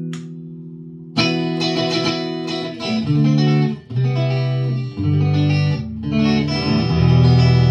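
PRS SE Custom 24 electric guitar played through a Marshall JCM2000 valve amplifier. A chord rings and fades for about a second, then a riff of picked notes and chords with strong low notes follows, ending on a held low chord.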